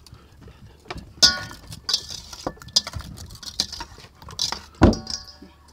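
Hands coating food in flour on a stainless steel tray: soft rustling and patting in the flour, with a few sharp knocks of fingers and food against the tray, some leaving a brief metallic ring. The loudest, duller knock comes near the end.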